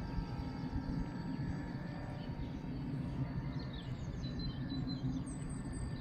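Faint steady whine of an eFoil's electric motor over a steady low outdoor rumble; birds chirp several times in the second half.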